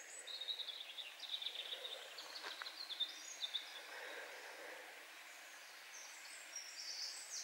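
Faint woodland ambience: small birds calling with thin, high chirps, a run of short notes over the first few seconds and more near the end, over a soft steady hiss.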